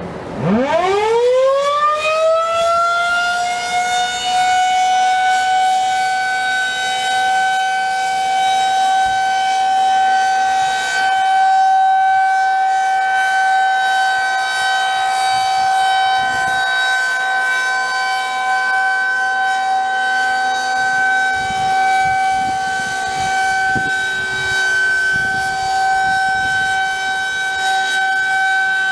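Federal Signal 2001-SRN electromechanical outdoor warning siren starting up, its pitch rising over about two seconds, then holding one steady high tone for the 30-second alert. Its chopper motor is running and the siren sounds healthy.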